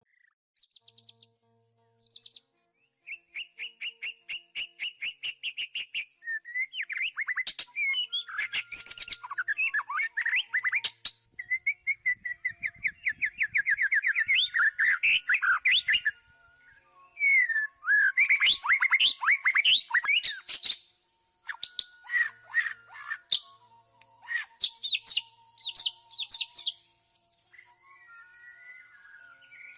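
White-rumped shama singing a long, varied song: runs of rapid repeated notes, trills and sweeping whistles in quick succession, broken by brief pauses.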